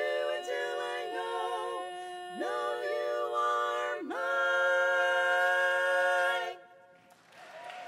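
Four-woman a cappella quartet singing in close four-part harmony, closing the song on a long held chord that cuts off sharply. Applause starts just before the end.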